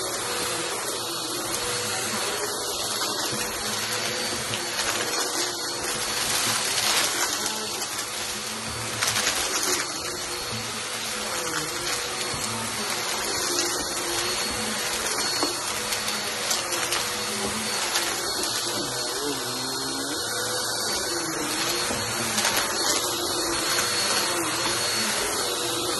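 Bissell Helix vacuum cleaner running over a shag rug, its motor whining steadily while grit and debris crunch as they are sucked up. The level swells and dips a little through the passes.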